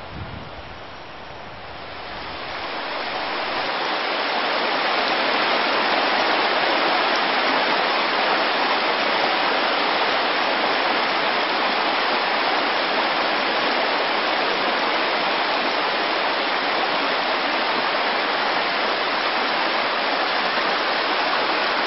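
Mountain stream rushing over rocks beneath a snow bridge: a steady, even rushing that swells up over the first few seconds and then holds.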